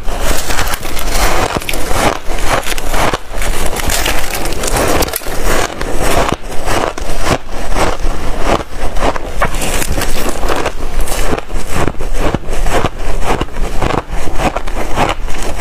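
Close-miked crunching and chewing of chunks of freezer frost ice, a dense, continuous run of crisp crunches.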